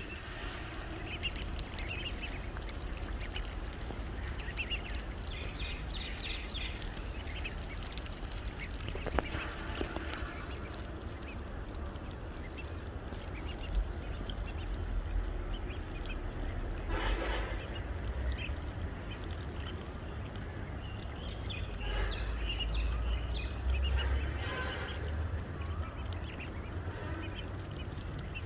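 Ducklings peeping and calling, many short high calls scattered throughout, over a steady low rumble.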